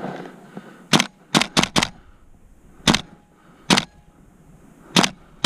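Airsoft gun firing about eight sharp single shots at an irregular pace: a quick run of four, then single shots about a second apart.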